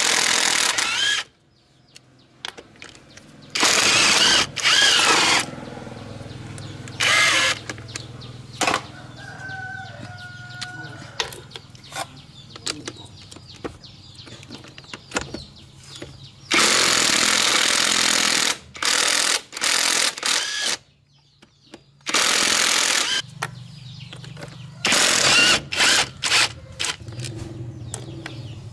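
Impact wrench hammering in several bursts of one to four seconds, running the nuts off the studs of a rickshaw's rear axle shaft flange. Metal clinks and knocks come between the bursts.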